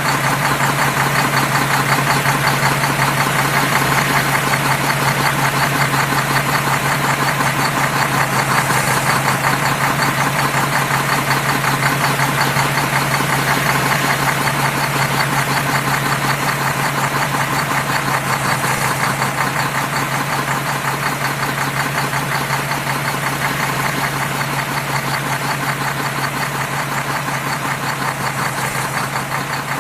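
Toy truck's motor running steadily with a fast, even chugging and a constant low hum that does not change.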